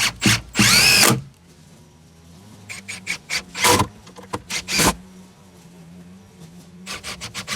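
A power drill-driver whirs briefly about half a second in, then several sharp knocks on the wooden framing, over a steady low hum.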